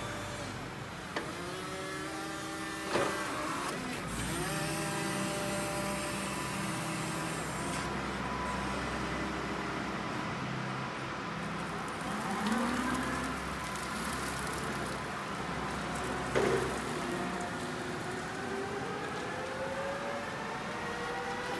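Still R60-35 electric forklift driving and manoeuvring: the whine of its electric motors holds, then slides up and down in pitch as it speeds up and slows, with a few sharp knocks along the way.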